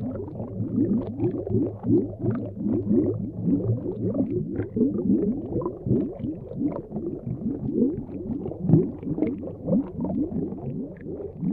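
Underwater bubbling sound effect: a rapid, continuous stream of low bubble pops, each one a short rising blip.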